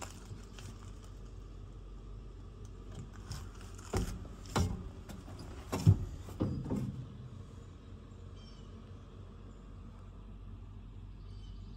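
A few scattered knocks and clunks of someone moving about in a truck cab, the loudest about six seconds in, over a low steady hum.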